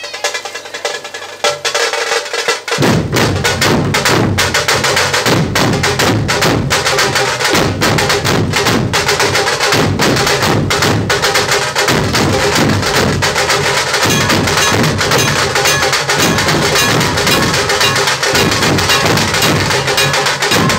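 Maharashtrian dhol-tasha ensemble playing: sharp high tasha strokes alone at first, then the large barrel-shaped dhol drums, struck with sticks, come in about three seconds in with deep strokes in a loud, fast, driving rhythm.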